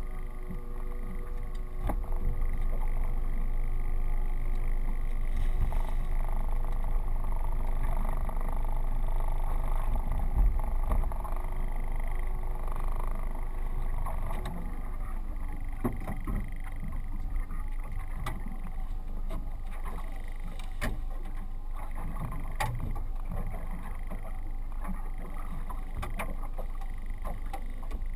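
Boat's outboard motor running steadily, with wind rumbling on the microphone; about halfway through its note drops as the throttle is eased back, and it settles into a lower, quieter run. Scattered sharp clicks and knocks follow.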